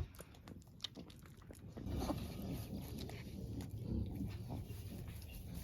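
Pigs grunting low and continuously from about two seconds in, after a stretch of faint clicks and wet rustling, as newborn piglets nurse on the sow.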